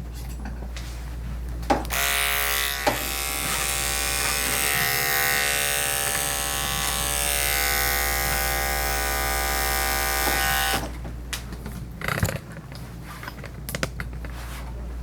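Electric dog grooming clippers running with a steady buzz. From about two seconds in to about eleven seconds in they get much louder and brighter as the blade works through the coat. The groomer says the blade needs oil.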